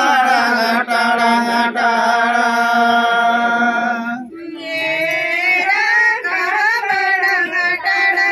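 Men singing a Santali song together in long held notes. The phrase breaks off about four seconds in, and a new phrase starts.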